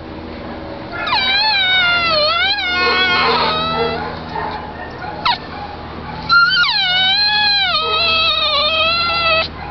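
Miniature poodle whining in two long, wavering cries, each starting high and sliding down in pitch, about a second in and again past halfway, over a steady low hum.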